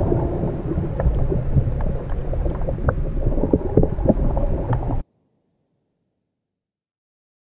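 Rumbling, crackling underwater noise picked up by a submerged camera, with scattered sharp clicks and faint music beneath it. It cuts off abruptly about five seconds in, leaving dead silence.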